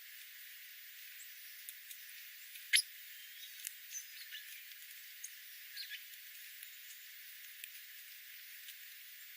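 Small birds giving short, high chirps over a steady hiss. The loudest is a sharp falling chirp about three seconds in, followed by a few quieter ones over the next three seconds.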